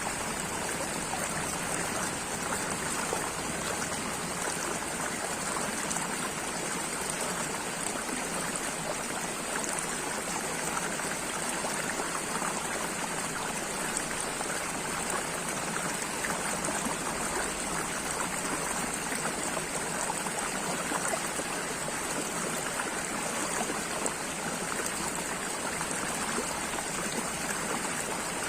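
Running water flowing steadily with an even, unbroken rush and no pauses or splashes standing out.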